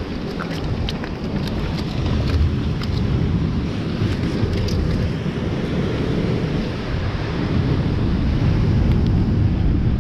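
Wind buffeting the microphone with a steady low rumble, and sea surf washing against the rocks behind it. A few faint ticks come in the first half.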